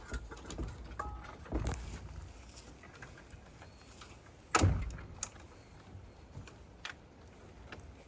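Light rattling and tapping, with one sharp knock a little past halfway.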